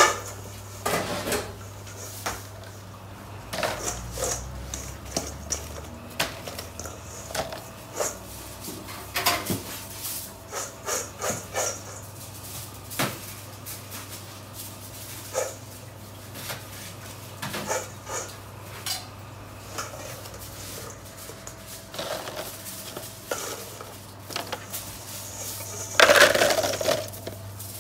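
Kitchen clatter: metal utensils, trays and dishes knocking and clinking in irregular bursts over a steady low hum, with a louder clatter lasting about a second near the end.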